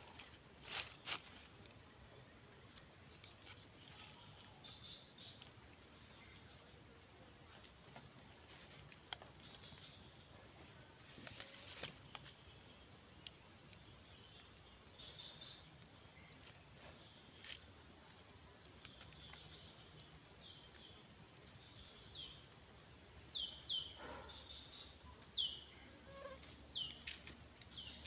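Steady high-pitched drone of insects, crickets or similar, with scattered short bird chirps; near the end a bird gives several quick downward-sweeping calls.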